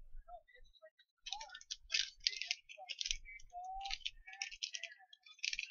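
Irregular run of light, quick clicks and taps in close clusters, starting a little over a second in.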